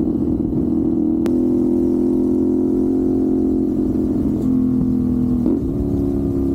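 CFMoto 450SR's parallel-twin engine running at a nearly steady pitch while riding, with a sharp click about a second in and a brief change in engine pitch about five and a half seconds in.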